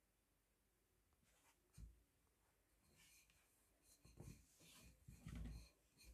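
Near silence with a few faint rubbing and scratching noises and a soft thump just under two seconds in.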